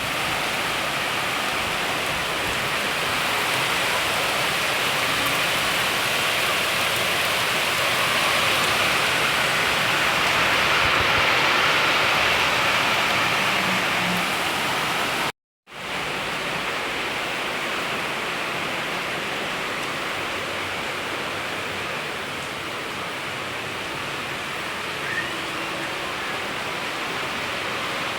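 Heavy rain falling, a steady hiss that cuts out for a moment about halfway through and comes back a little softer.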